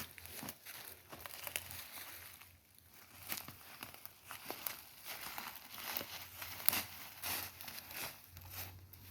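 Irregular rustling and crackling, with sharp clicks scattered throughout.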